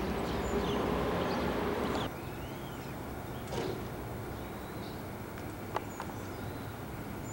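Outdoor background ambience: a steady noise that drops suddenly about two seconds in, then a quieter hum with a few short chirps and a couple of sharp clicks.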